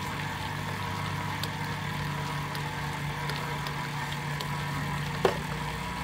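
KitchenAid Artisan stand mixer running at low speed, a steady motor hum as its flat beater works a thick meatloaf mix in the steel bowl. A single sharp knock comes about five seconds in.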